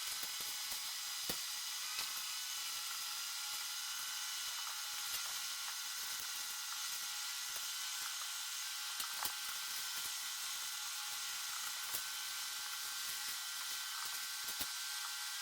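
Steady high hiss, with faint clicks scattered through it.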